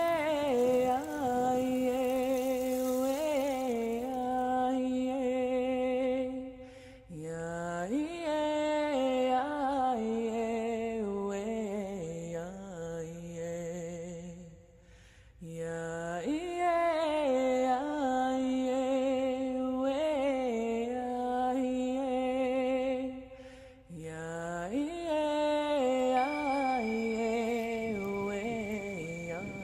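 A voice singing long, wordless chant-like phrases with vibrato, four in all, each opening with an upward swoop. A steady high tone joins near the end.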